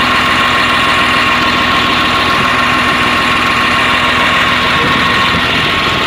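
Caterpillar 950H wheel loader's six-cylinder C7 diesel engine idling steadily, with a steady high whine over it. The engine is running with a misfire that the mechanic puts down to a faulty injector, flagged by an injector error code.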